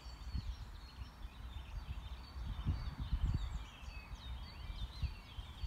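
Wind buffeting the microphone in uneven low gusts, loudest around the middle, with small birds chirping and singing throughout in the background.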